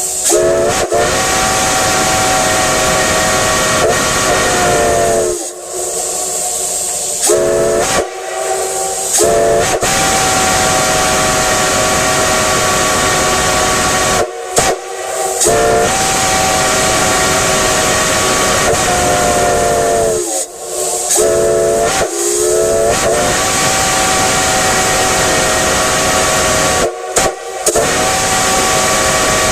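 Multi-chime steam whistle blown in a series of long blasts, several seconds each with short breaks between, the chord sliding up in pitch as each blast opens. Steam hisses along with the blasts.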